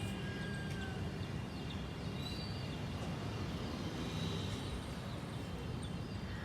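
Steady outdoor background rumble with a few faint, short bird chirps over it.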